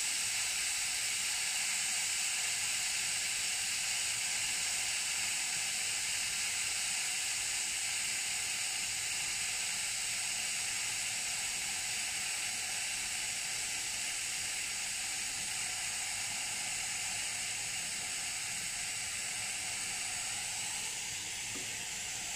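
Steady hiss of pressure venting from a Nuova Simonelli Eagle One Prima espresso machine's boiler as it is emptied, slowly getting quieter as the boiler pressure drops.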